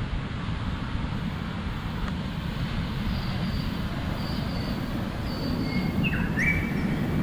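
Ocean surf washing onto a sandy beach, mixed with wind rumbling on the microphone. In the second half there are a few short, high-pitched tones.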